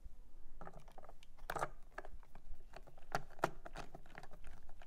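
Irregular clicks, scrapes and small crunches of plastic and metal parts being handled as an air-core gauge motor is seated in a plastic instrument cluster and a screwdriver is set to its screws.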